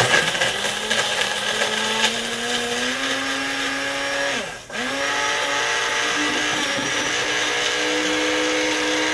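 Countertop blender motor running on a thick mix of ice cream, fruit and a little milk, its pitch creeping slowly upward. About halfway through it drops out for a moment and starts again. The mix is too thick to blend fully and needs more milk.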